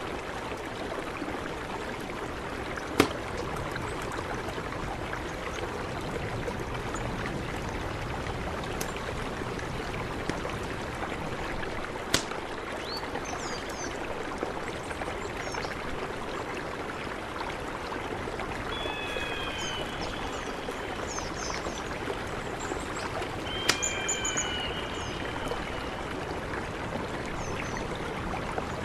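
A mountain river rushing steadily, with a bird chirping in short whistled calls now and then, mostly in the second half. A few sharp clicks stand out above the water, the loudest about three seconds in.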